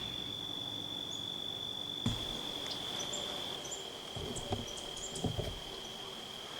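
An insect trilling in one steady, unbroken high tone, with a few faint short high chirps and some soft low thumps.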